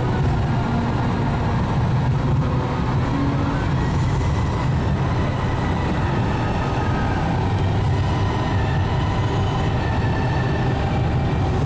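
Steady road and engine noise of a moving car heard from inside the cabin: a low, even rumble.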